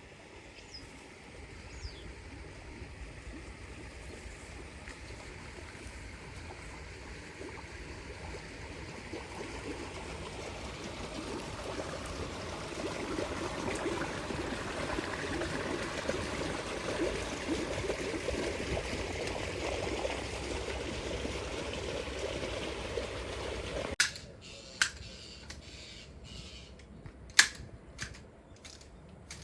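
A rushing noise that swells and then eases over about twenty seconds, then sharp snips of hand shears cutting ornamental shrubs, one or two a second, near the end.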